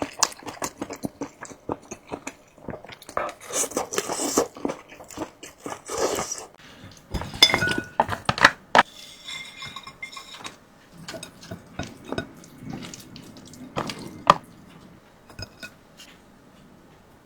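Close-miked eating: utensils clicking and clinking against a bowl, mixed with wet, liquid eating sounds of noodles in broth. The clinks come in scattered bursts and thin out near the end.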